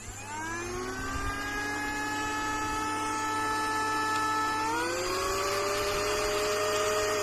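Mini cordless handheld vacuum cleaner switched on, its small motor whining up to speed within about half a second and running steadily, then stepping up to a higher pitch about two-thirds of the way through.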